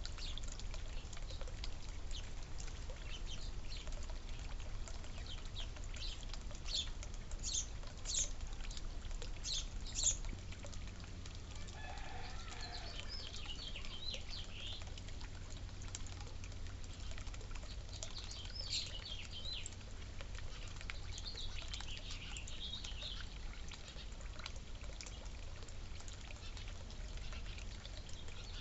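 Small birds chirping, a rapid scatter of short high chirps that thins out after about ten seconds into occasional short trills. A steady low rumble runs underneath.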